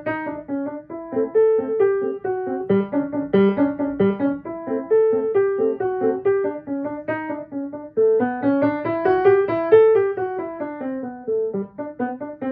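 Baldwin piano played with both hands in the middle of the keyboard: a lively piece of quick, short notes, with a passage that climbs higher about eight seconds in and comes back down.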